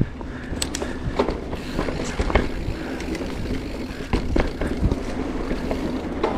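Marin Mount Vision 8 mountain bike rolling fast down a dirt singletrack: steady tyre noise on the dirt with scattered clicks and rattles from the bike over bumps.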